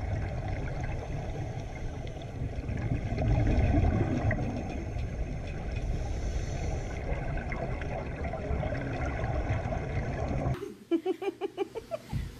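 Underwater water noise: a steady low rumble with bubbling, swelling about three to four seconds in. It cuts off abruptly near the end and is followed by a quick run of short, evenly spaced pulses.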